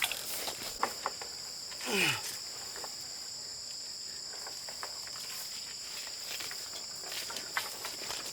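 Insects shrilling steadily in two high, even tones, with a short falling cry about two seconds in and a few light clicks and taps.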